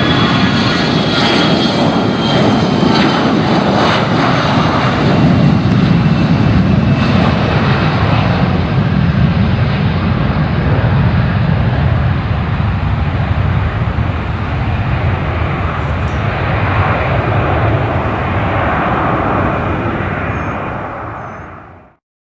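Fixed-wing aircraft engine noise, loud and steady, with a high whine that slowly falls in pitch. It drops away quickly to silence near the end.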